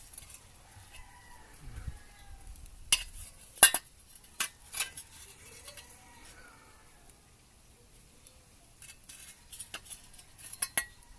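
Scattered sharp metal clinks and knocks from tools and fasteners being handled while working under the vehicle. There is a cluster of loud clinks about three to five seconds in and another near the end.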